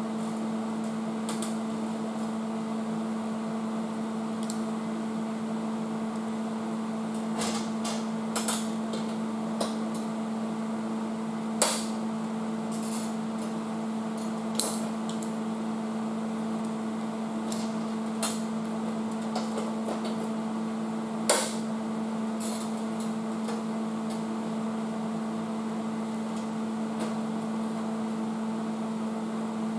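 Steady machine hum with scattered light taps and knocks on metal during sheet-metal repair work, two of them sharper, about 11 and 21 seconds in.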